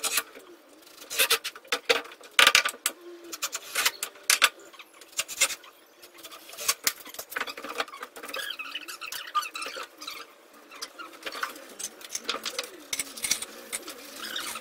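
Irregular knocks and clicks of hand work and handling on a pine-plank mezzanine deck on a steel frame, coming at uneven intervals, with a faint wavering low tone underneath.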